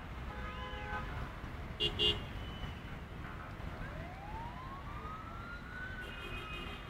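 Emergency-vehicle siren wailing slowly, rising in pitch and then falling near the end, over a steady rumble of road traffic. Two short horn blasts sound about two seconds in.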